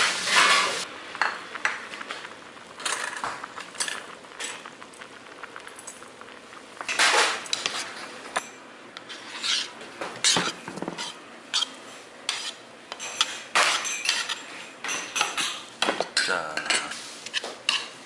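Metal chopsticks and spoon clinking and scraping against a bowl in irregular short strokes as rice, greens and sliced raw fish are stirred together.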